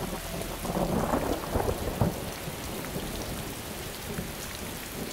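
Rain sound effect: a steady hiss of falling rain, with a low rumble of thunder in the first two seconds.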